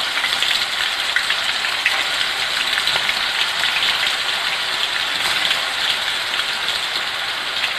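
Chilli-and-turmeric-coated chicken pieces deep-frying in hot oil in an aluminium kadai: a steady sizzle with many fine crackles, as the pieces have just gone into the hot oil.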